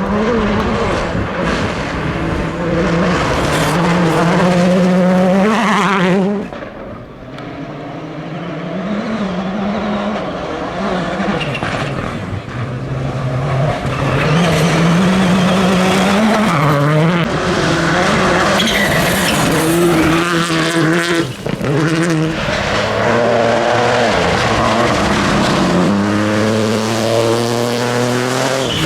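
Rally cars driven flat out past the spectator, engine notes climbing and dropping sharply with each gear change. The sound fades about six seconds in, then another car builds up and passes.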